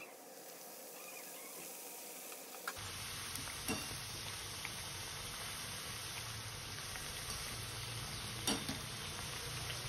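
Karanjis (stuffed pastries) deep-frying in hot oil in a steel pan: a steady sizzle, with a few faint clicks.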